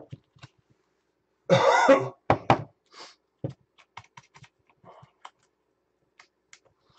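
A single cough about one and a half seconds in, among small scattered clicks and taps of trading cards being handled.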